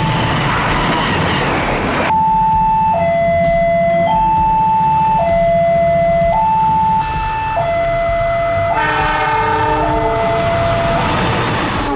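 A train rushing past with its horn sounding for about two seconds. Then a two-tone warning signal alternates steadily between a high and a low note, each held about a second, for the rest of the stretch.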